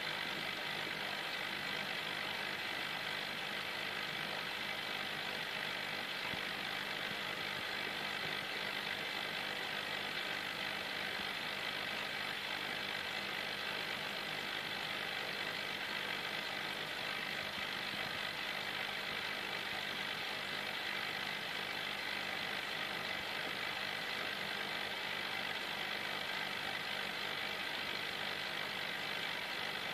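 Steady mechanical hum with an even hiss and a few faint steady tones, heard through a camera submerged in an aquarium: the drone of the tank's running pump.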